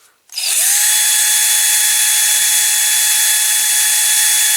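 Electric drill fitted with a wire brush, spinning up to speed and running steadily with a high whine and a scratchy hiss while it strips paint off a die-cast toy wheel.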